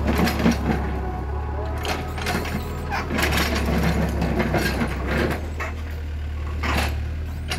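Doosan mini excavator's diesel engine running steadily under load as the machine tracks and works its arm, with repeated clanks and rattles from the tracks and bucket.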